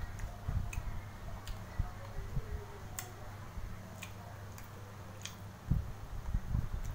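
Eating sounds: a man chewing and handling a spoon and bowl, giving scattered sharp clicks at an irregular pace, with a few low thumps near the end. A steady low hum runs underneath.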